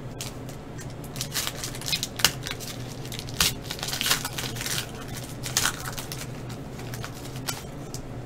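Foil wrapper of a Panini Chronicles basketball card pack being torn open by hand, crinkling and ripping in a series of sharp crackles.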